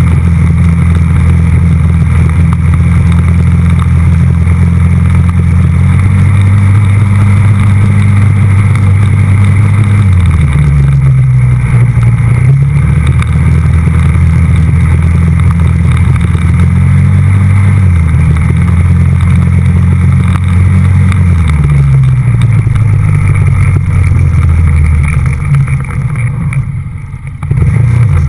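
TGB Blade 425 quad's single-cylinder four-stroke engine running while riding, heard close up from a mount on the tank. The engine note rises and falls with the throttle several times, gliding down twice, and drops off near the end as the throttle closes.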